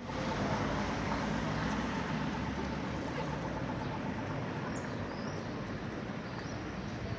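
City street ambience: a steady wash of traffic noise, with a few faint high chirps about five seconds in.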